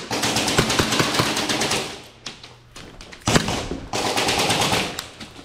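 Airsoft gun firing on full auto in two long bursts of rapid shots. The first runs for about two seconds, and the second starts just after three seconds in and lasts about a second and a half.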